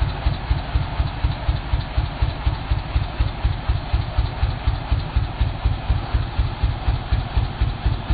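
Engine idling with an even, slow thump, about three beats a second.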